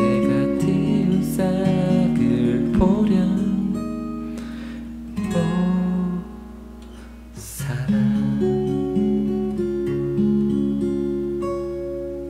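Lakewood steel-string acoustic guitar played fingerstyle: a slow melody of picked notes over a bass line. The playing thins out briefly around the middle, picks up again, and its last notes ring out and fade near the end.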